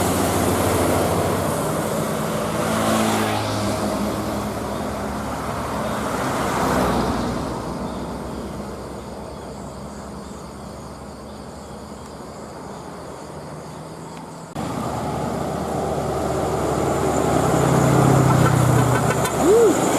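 Road traffic passing, with vehicle engines running and swelling as they go by. Partway through, the sound jumps suddenly louder. A short rising-and-falling tone comes near the end.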